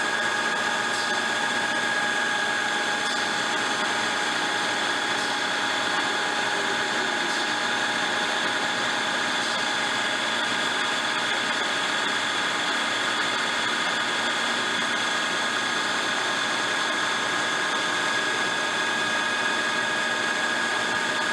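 Racer HB-110CB CNC horizontal boring mill's spindle running at about 1200 rpm: a steady hiss with several steady high tones over it, unchanging throughout.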